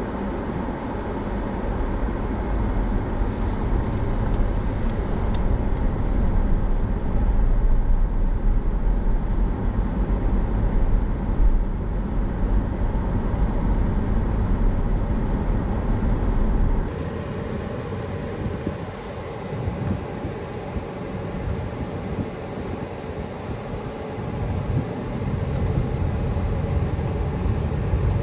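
Steady road noise from the Honda Civic e:HEV on the move, tyre and wind rumble with no engine note standing out. About two thirds of the way through the deep rumble drops away abruptly and the sound turns thinner and quieter.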